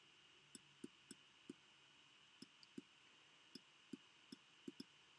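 Near silence with faint, irregular clicks and taps of a stylus on a tablet surface as a word is handwritten, about a dozen over the few seconds.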